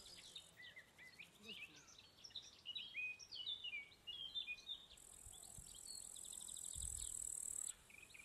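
Small birds chirping in quick, high, repeated notes, with an insect's steady high-pitched buzz that swells loud about five seconds in and cuts off shortly before the end.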